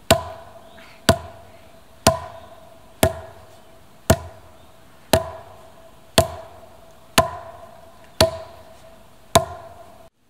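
A wooden club struck hard against wood about once a second, ten blows in all, each knock ringing briefly. A faint steady tone runs underneath.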